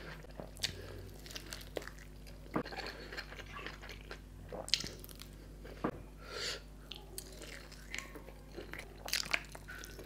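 Close-miked eating: bites and chewing of tandoori chicken and noodles, with many short, sharp crunches and wet mouth sounds at irregular moments. A faint steady hum runs underneath.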